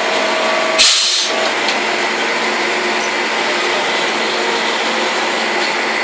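Sawmill machinery running steadily: a constant mechanical drone with faint steady tones in it. About a second in, a brief, loud rushing hiss cuts across it.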